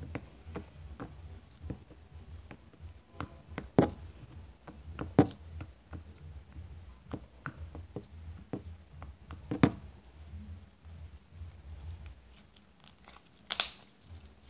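Watered-down slime being squeezed and pulled by hand, giving irregular wet clicks and pops. Three loud pops stand out a second or more apart, and a longer squelch comes near the end.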